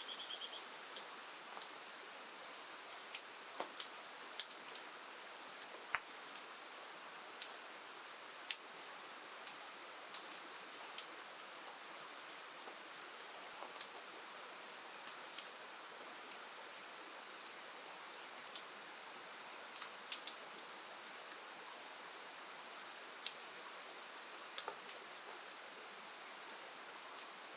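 Steady hiss of rain by a river, with sharp ticks at irregular intervals throughout.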